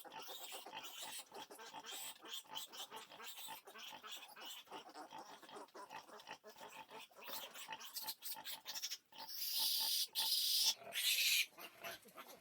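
Pigs grunting in quick, short grunts, then breaking into loud, shrill squealing twice near the end.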